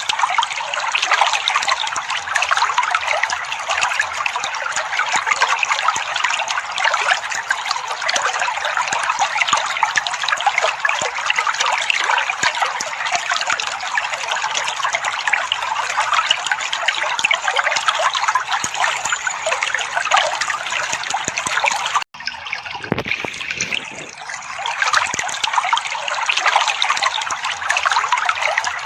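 Water trickling and burbling steadily, with a momentary break about 22 seconds in before it carries on.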